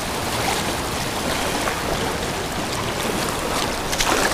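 Steady wash of ocean surf, with wind buffeting the microphone.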